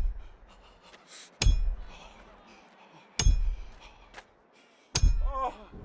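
A hammer driving a nail: heavy blows with a ringing metallic clang about every second and three-quarters, three full strikes, each ringing away before the next. A short cry of pain follows the last blow.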